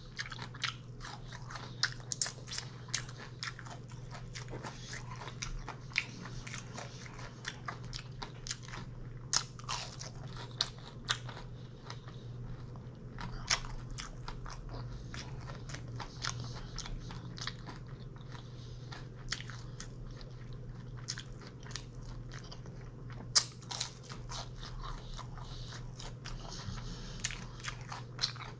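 Close-up chewing and crunching of food, with irregular crisp clicks from the bites and one sharper crunch about 23 seconds in. A steady low hum runs underneath.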